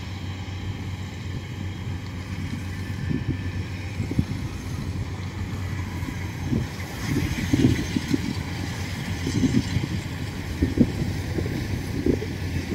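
Kubota DC-70 Plus combine harvester running steadily while cutting rice, its engine giving a low, even hum, with wind gusting on the microphone at times.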